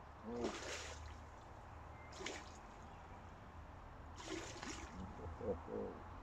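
Hooked fish splashing and thrashing at the water surface while being played on a rod, three splashes with bubbly gurgles between them.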